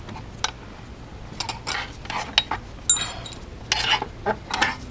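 Irregular metallic clicks, scrapes and clinks of hand tools and loose bolts being handled during engine work, with a short ringing tink of metal on metal about three seconds in.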